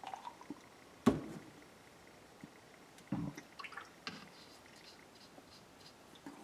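Plastic paint bottle with a plugged-up nozzle being handled on the work table: a sharp knock about a second in, a second knock around three seconds, and small clicks between.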